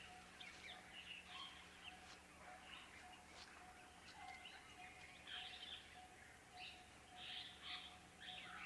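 Faint wild ambience with scattered short bird chirps and calls, over a steady low hum.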